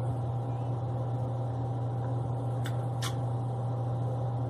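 Steady low hum of a small electric motor with a fainter higher tone above it, with two short clicks about two and a half and three seconds in.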